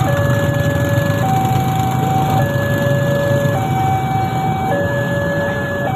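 Railway level-crossing electronic warning signal sounding a two-tone chime, alternating between a lower and a higher tone about every 1.2 seconds, over the running of many motorcycle engines moving off across the tracks.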